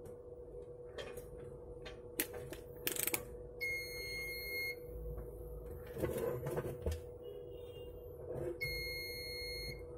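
A CCTV DVR's beeper sounding a steady, loud-pitched alarm beep of about a second, twice, roughly five seconds apart, with a 'ton ton' sound. Between the beeps come light clicks and knocks of a multimeter and its test probes being handled, over a faint steady hum.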